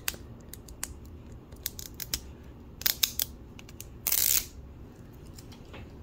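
Long fingernails clicking and scraping on the plastic layers of an L.O.L. Surprise toy ball, then about four seconds in a short ripping peel as the outer wrapper layer is pulled off.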